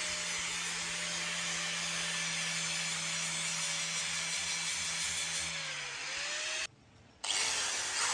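Electric angle grinder with an abrasive sanding pad running steadily against a steel pistol slide, a constant whine over a gritty hiss. The pitch sags briefly about six seconds in. The sound cuts out for half a second near the end, then the motor winds back up.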